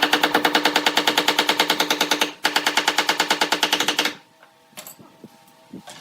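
A machine running with a rapid, even clatter over a steady hum. It breaks off briefly a little past two seconds in, starts again, and stops about four seconds in.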